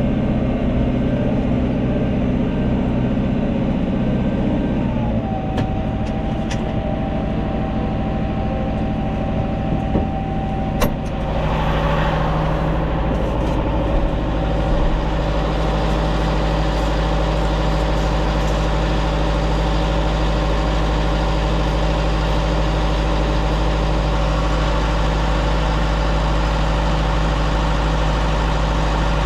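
Farm tractor engine running steadily; its pitch drops about five seconds in and then holds even, with a single clunk about eleven seconds in.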